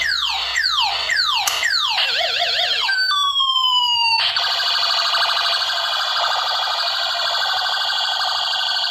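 Electronic sound effects from a battery-powered toy pistol. A quick run of falling zap sweeps, about three a second, is followed near the two-second mark by a short warbling tone, then a few slower falling tones. From about four seconds in, a steady buzzing, siren-like tone sounds.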